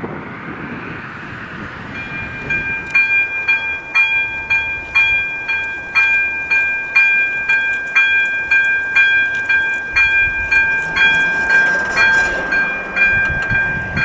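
Electronic level-crossing bell (AŽD ZV-02) ringing with a bright, evenly repeated ding about twice a second, starting about two and a half seconds in: the crossing's warning that a train is approaching. Before it, a rushing noise fades out.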